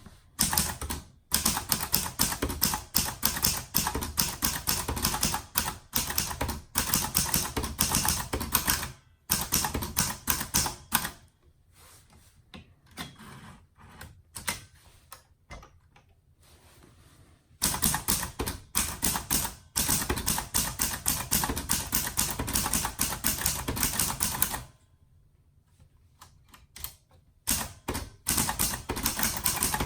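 1955 Empire Aristocrat portable manual typewriter, a licensed Hermes Baby clone, being typed on: quick runs of sharp key and typebar strikes lasting several seconds each, broken by two pauses of a few seconds with only faint sounds.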